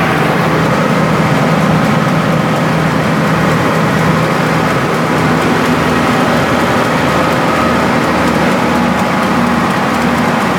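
Rice milling machine running steadily, a loud continuous mechanical drone with a low hum and grinding noise over it.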